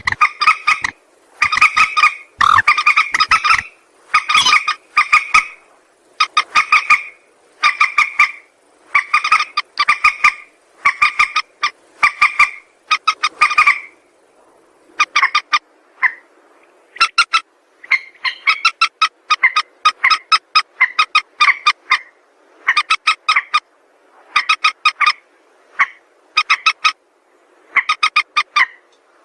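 Mandar sawah (rail) calling: short harsh, rapidly pulsed calls repeated about once a second, with a brief break about halfway through.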